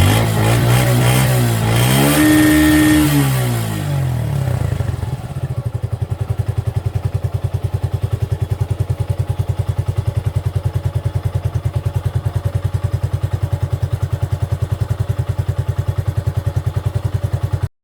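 Exhaust of a 2020 Suzuki Gixxer single-cylinder motorcycle engine blipped once, its pitch rising and then falling over the first few seconds. It then settles into a steady idle with an even pulse, which stops abruptly near the end.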